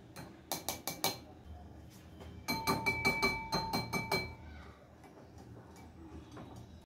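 A stainless steel sieve tapped against the rim of a glass mixing bowl to shake cocoa powder through, with ringing clinks. A few taps come about half a second in, then a quick run of about ten taps a couple of seconds later. Faint ticks of a wire whisk in the dry powder follow near the end.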